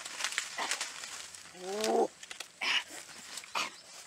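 Mango tree leaves rustling and stems and twigs snapping as branches are pulled and fruit is picked, in a run of short crackles. About two seconds in comes one short rising call.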